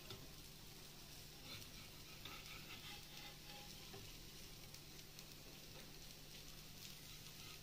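Faint sizzling of an onion dosa cooking on a dosa tawa, with a steel spatula scraping under its edge to loosen it, over a steady low hum.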